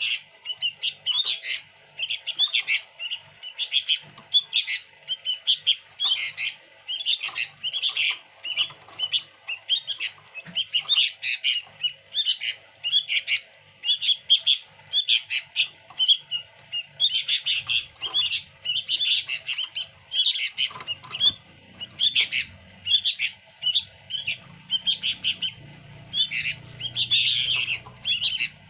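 Sooty-headed bulbul singing loudly and almost without pause, one quick chattering phrase after another about every second. Its song is packed with fill-in notes (isian) copied from other birds.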